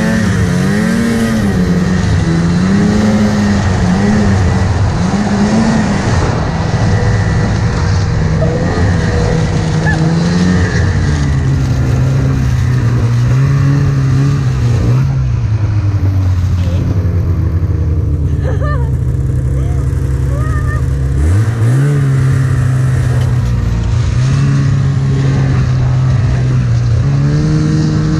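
Snowmobile engine running under throttle, heard close up, its pitch rising and falling as the rider speeds up and eases off. It wavers rapidly in the first few seconds, then holds fairly steady. About three-quarters of the way through it drops low and climbs back up, and it rises again near the end.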